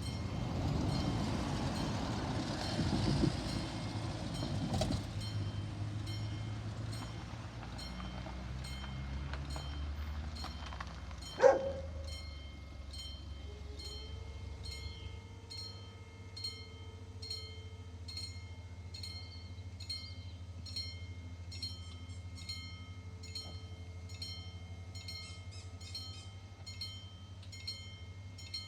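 An ALn 776 diesel railcar runs past a level crossing, loudest in the first few seconds, and then its engine fades away. The crossing's warning bells ring steadily at about two strokes a second. A single sharp bang comes about eleven seconds in.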